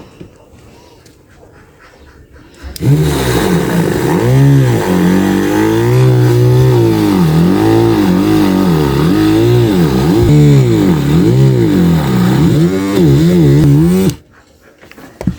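Homemade DC-motor drill running, its whine repeatedly dipping in pitch and recovering. It starts about three seconds in and cuts off suddenly near the end.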